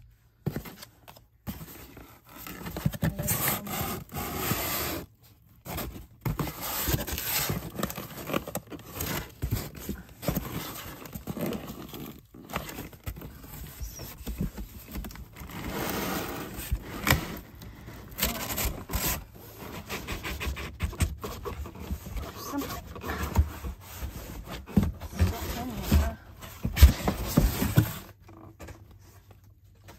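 Craft supplies and their packaging being handled: irregular scraping, rubbing and rustling with small clicks and knocks.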